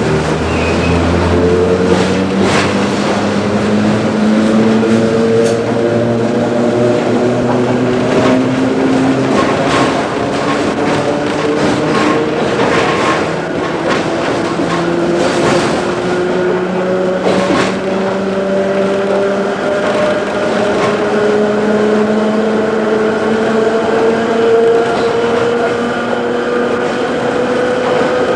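Motors and gearing of a Sydney single-deck electric suburban train ('Red Rattler') heard from inside the carriage, whining with a pitch that rises slowly and steadily as the train gathers speed. Sharp clicks and knocks from the wheels and running gear come through now and then.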